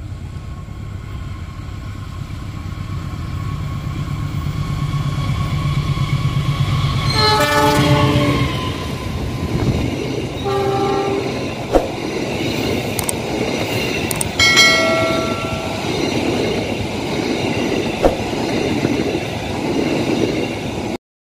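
KA Argo Wilis express train passing close by: the diesel locomotive's rumble builds as it approaches, its horn sounds three short blasts, and the coaches roll past with a steady rolling noise and a couple of sharp wheel clicks.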